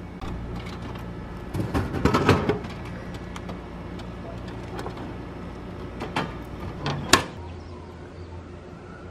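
Drink vending machine dispensing: a can or bottle drops into the dispensing tray with a clattering thud about two seconds in. A few sharp knocks follow as the tray flap is pushed open and the drink taken out, the sharpest about seven seconds in.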